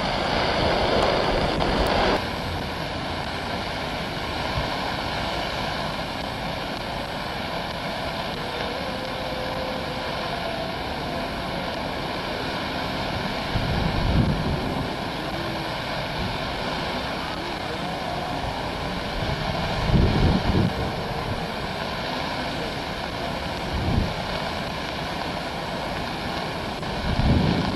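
Boeing 737 airliner's jet engines running loud on the runway for about two seconds, cut off abruptly. Then a quieter steady jet hiss with faint whining tones from an airliner on approach, with gusts of wind buffeting the microphone several times.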